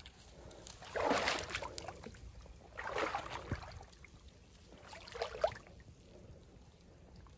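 Water splashing and swishing as a long-handled mesh dip net is pushed down through shallow stream water along the bank, in three bursts about a second, three seconds and five seconds in.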